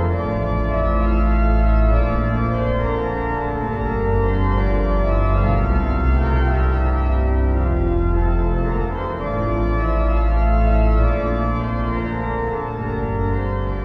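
Organ music: slow, sustained chords over a deep bass line, the chords changing every second or two.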